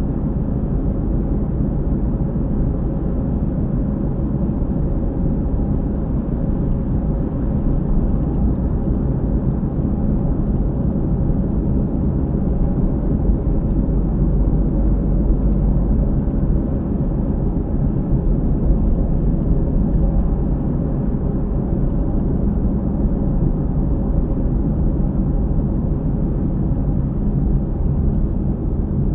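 Car driving, heard from inside the cabin through a dashcam microphone: steady low road and tyre drone with a noise from around one wheel that repeats in step with road speed, which the owner suspects is a failing hub bearing.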